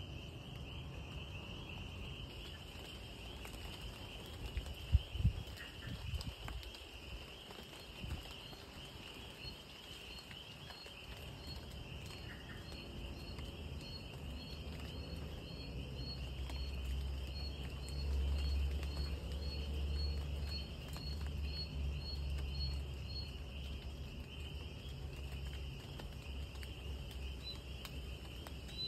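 Night insects, crickets, trilling steadily in a high band, with a faint scattered patter. Another caller repeats a short higher chirp about one and a half times a second through the middle. A couple of low thumps come about five seconds in, and a low rumble swells and fades between about 15 and 24 seconds.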